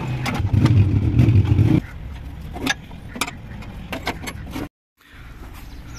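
An engine running, loud for the first couple of seconds and then quieter and steady, with sharp metallic clicks and knocks scattered through it. The sound cuts out completely for a moment near the end.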